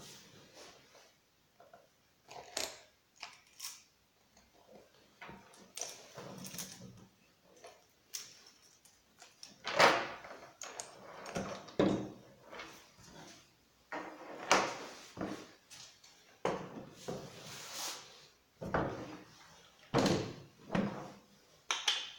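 Irregular metallic clanks, rattles and scrapes of a saw chain and guide bar being worked off a chainsaw and set down on a wooden workbench.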